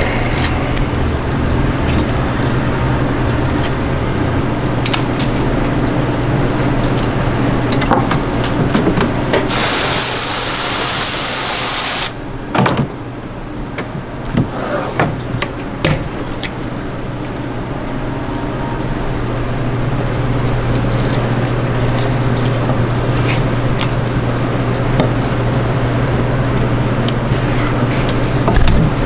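Water running steadily at a fish-cutting station over a low steady hum, with occasional short knocks as a long knife slices yellowtail fillets on a plastic cutting board. About ten seconds in, a louder hissing spray lasts about two seconds and cuts off. The background is then quieter for a few seconds before building back up.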